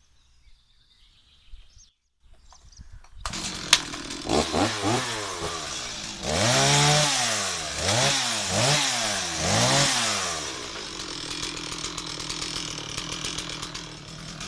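Stihl MS 260 two-stroke chainsaw engine coming in suddenly about three seconds in, then revved up and down about once a second before settling to a steady run.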